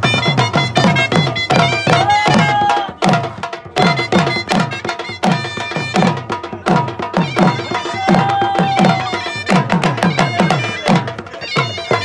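Pashto folk music for the Khattak dance: fast, steady drumming with deep strokes that drop in pitch, about three to four a second, under a held melody line. The music thins out briefly about three seconds in.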